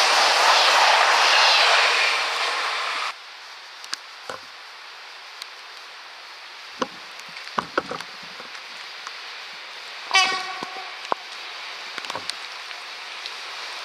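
A loud steady rushing noise that stops abruptly about 3 s in, then quiet with scattered small clicks, and about 10 s in a short blast from the horn of the approaching Traxx E 186 electric locomotive.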